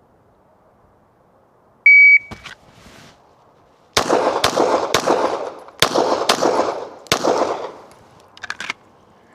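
Shot-timer start beep, one high steady tone of about half a second, then six 9mm shots from a Glock 17 pistol fired in a quick string, each followed by range echo. The first three shots come about half a second apart, then there is a longer gap before the fourth.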